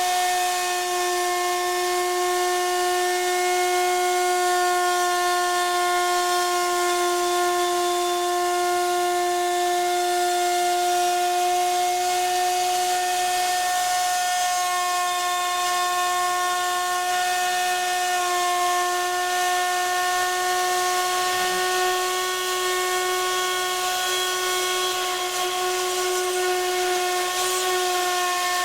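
Router spindle running with a steady high whine while milling aluminium, with a hiss of cutting noise over it.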